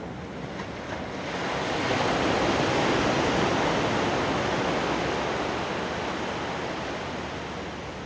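A small sea wave breaking on the beach and washing up the shore in foam: the rush of surf swells about a second in, is loudest for a couple of seconds, then slowly fades.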